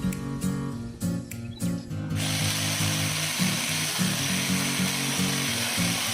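Angle grinder fitted with a chainsaw attachment starts running about two seconds in and runs steadily, cutting wood, over background music with a steady beat.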